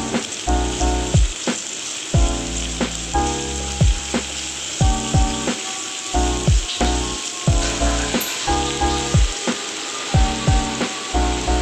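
Food frying with a steady sizzle, under background music with a melodic line and a regular beat.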